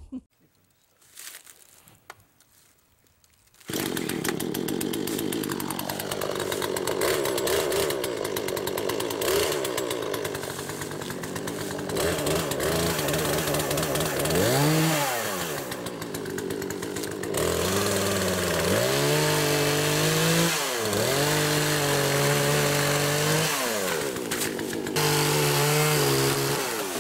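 Poulan Pro two-stroke chainsaw starting up about four seconds in and running at high revs while cutting a small tree, its engine pitch dipping and recovering several times in the second half.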